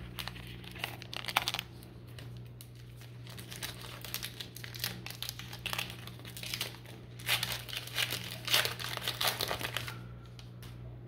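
A 2022 Topps Archives baseball card pack being torn open, its wrapper crinkling and crackling in several spells and stopping about ten seconds in.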